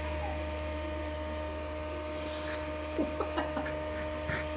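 Electric fan running with a steady low hum, with a few short faint sounds about three seconds in.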